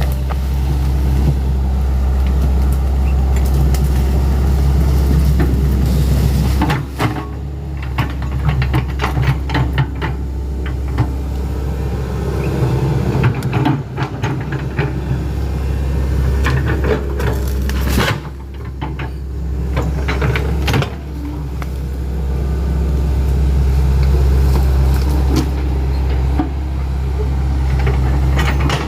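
Hitachi Zaxis 110 excavator's diesel engine running under hydraulic load as the machine works timber, its pitch and level dipping briefly about 7, 18 and 21 seconds in. Repeated sharp clanks and knocks from the machine and the wood it handles sound over the engine.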